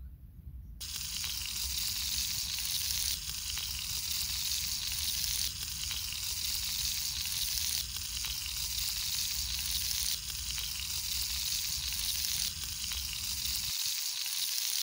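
Potato chips deep-frying in hot oil in a pan: a steady, dense sizzle of bubbling oil that starts about a second in.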